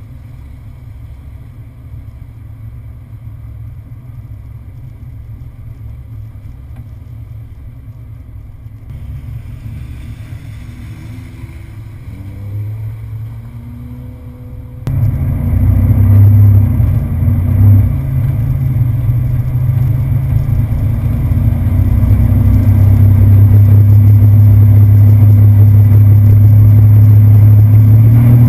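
Off-road 4x4's engine heard close up from a hood-mounted camera, driving a muddy track. A steady low rumble turns suddenly much louder about halfway through, then runs hard and builds a little more near the end.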